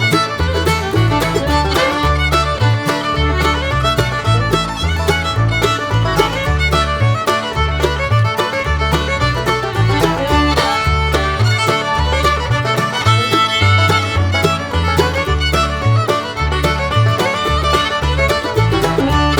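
Background music: an upbeat fiddle tune with a steady bass line.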